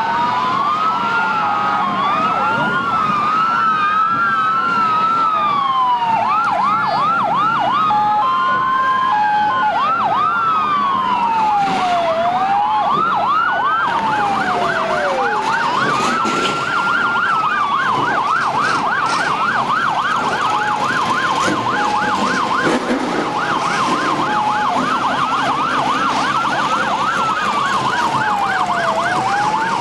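Several vehicle sirens sounding at once, slow rising-and-falling wails overlapping. About halfway through, a fast yelp takes over.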